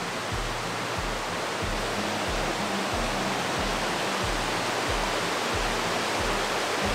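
Steady rush of a mountain stream and nearby waterfall, with soft background music under it marked by a low bass pulse about every two-thirds of a second.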